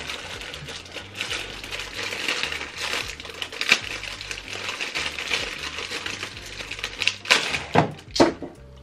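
A clear plastic bag crinkling and crackling as hands work at it to pull it open, with a few louder, sharper crackles in the second half.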